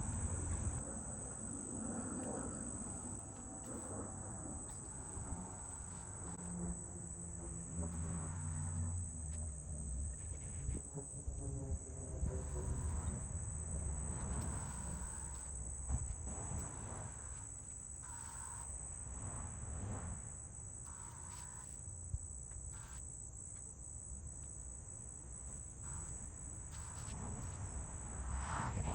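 Crickets or other insects giving a steady high-pitched trill, over a low background rumble.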